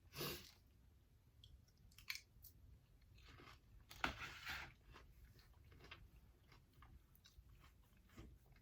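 Close-up chewing and crunching of food, in scattered short bites, the loudest about four seconds in.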